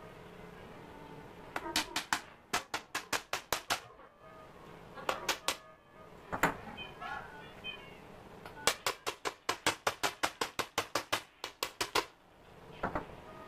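Quick runs of sharp knocks, about four or five a second, in several bursts, as the dust-caked body of an old electric planer is rapped to shake the sawdust and dirt out of it.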